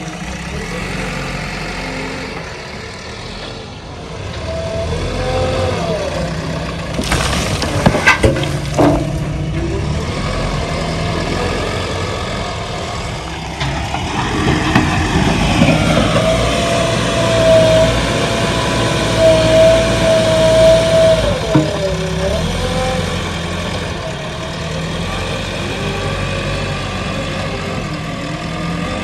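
JCB 3DX Xpert backhoe loader's diesel engine running at work, with loud clanks about seven to nine seconds in. A held, steady whine runs from about sixteen to twenty-one seconds in.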